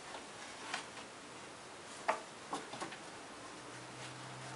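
Faint handling of cotton line on a metal cleat mounted on a wooden board: a few scattered light clicks and taps, the sharpest about two seconds in. A low steady hum comes in near the end.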